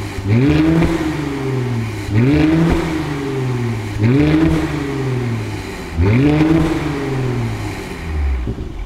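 Mercedes-AMG C43's twin-turbo V6 free-revved through an Armytrix cat-back valved exhaust: four quick blips about two seconds apart, each rising sharply and falling back. It settles back to idle near the end.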